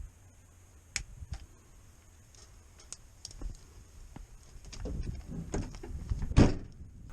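Rummaging in a work truck: scattered clicks and knocks of tools and parts being handled, with a heavy thump about six seconds in.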